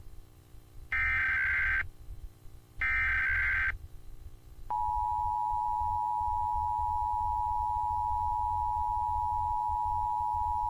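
Emergency Alert System broadcast: two one-second bursts of SAME header data, harsh digital screeches, end the header sequence. About four and a half seconds in, the EAS attention signal starts with a click: the steady two-tone 853 and 960 Hz alert tone, held without change.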